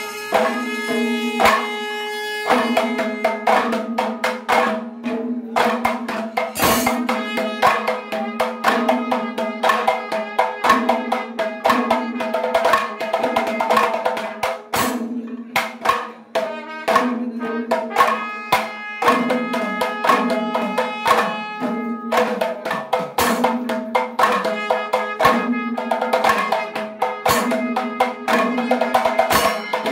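A traditional temple percussion ensemble playing loud, fast, continuous rhythms: barrel drums slung at the players' waists and rapid sharp strikes that sound like small hand cymbals. A held, droning melodic line runs over the drumming, broken by a few short pauses near the middle.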